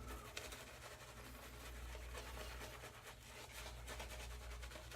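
Faint, soft scratching and swishing of a synthetic shaving brush working lather, over a low steady room hum.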